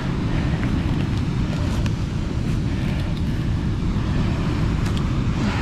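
Steady low rumble of wind buffeting a body-worn camera's microphone, with a few faint clicks of handling.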